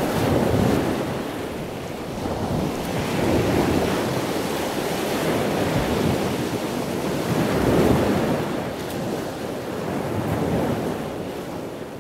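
Wind rushing over the microphone with the sound of the sea beneath it, swelling and easing in gusts every few seconds.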